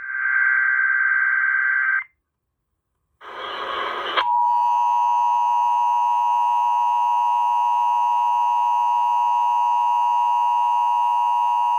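Emergency Alert System broadcast over the radio: buzzy screeching data bursts of the digital header, separated by a second of silence. About four seconds in, the steady two-tone attention signal begins, a harsh dual-pitched tone that holds unchanged, announcing an emergency alert (here a tornado watch).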